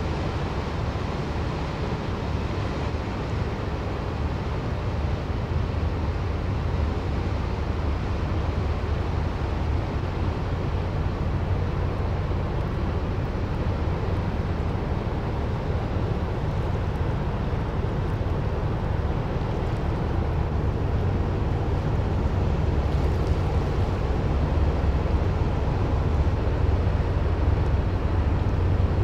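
Low, steady rumble of a passing container ship's engine, growing slowly louder toward the end.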